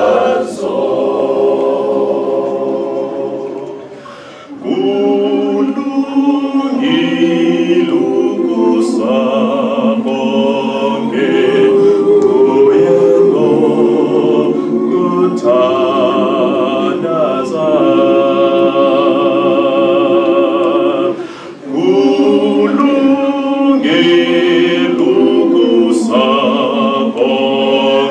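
Men's choir singing a gospel song a cappella in harmony, with held chords. The singing drops away briefly about four seconds in and again about three quarters of the way through before the next phrase.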